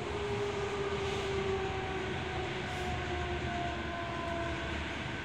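Toyo Rapid Railway 2000 series train running, heard from inside the passenger car: a steady rumble of wheels on track under thin whining tones from the drive equipment that drift slightly in pitch.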